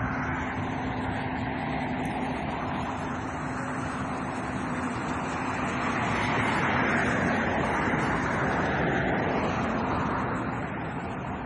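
A car driving slowly: steady engine hum and road noise heard from the moving vehicle, getting a little louder about halfway through.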